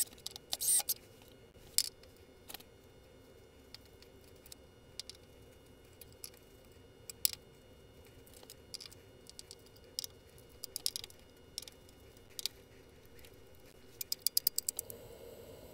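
Scattered short clicks and rattles of small metal hardware, binder clips and screws, being handled and fastened to a wooden strip, with a quick run of clicks near the end.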